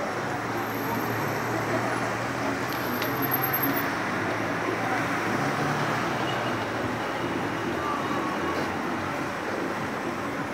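Steady hum of city street traffic.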